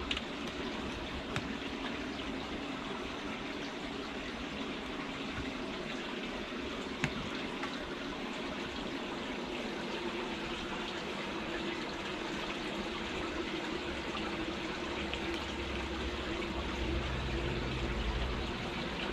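Steady trickling, running water, with a few faint taps.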